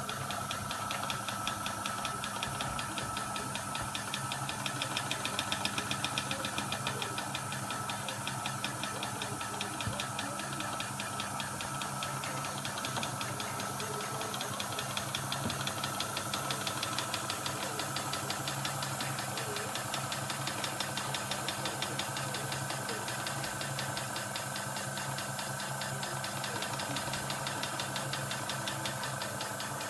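Model steam road roller's engine running on compressed air, its exhaust beating in a rapid, even rhythm, a little louder around five to six seconds in.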